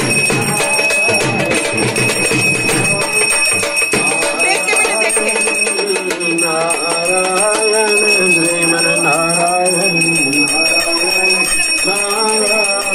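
Group singing of a Hindu devotional wedding song. Rhythmic percussion is heard in the first few seconds, and a steady high ringing tone runs underneath.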